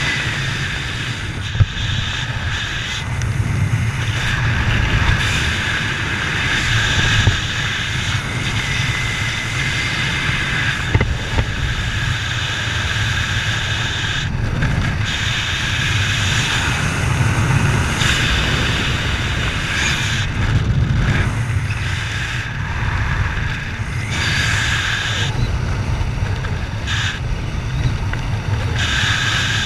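Steady noise of a vehicle in motion, with a continuous low drone and wind noise, and occasional faint ticks.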